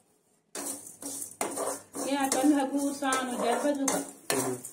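A metal spoon scrapes and knocks against a metal kadai while toor dal and coconut are stirred as they roast. The strokes are spaced about a second apart, and a voice can be heard over them in the second half.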